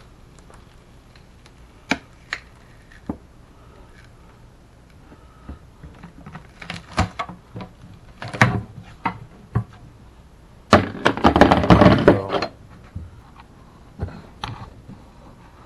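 Screwdriver prying a silicone-sealed subwoofer out of an MDF speaker box: scattered clicks and knocks of metal on wood, then a loud crackling scrape for about two seconds, about two-thirds of the way through.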